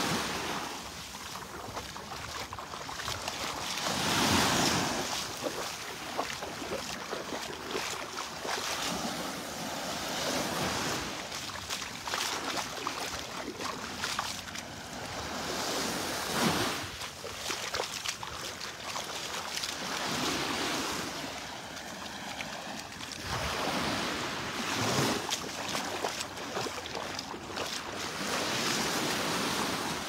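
Small Gulf of Mexico waves lapping and washing up onto a sandy shore, a soft swell of surf every four to six seconds.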